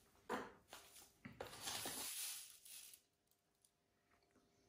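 A measuring spoon scooping granulated sugar out of a bag: a few light clicks, then a rustling scrape lasting about a second, after which it goes near silent.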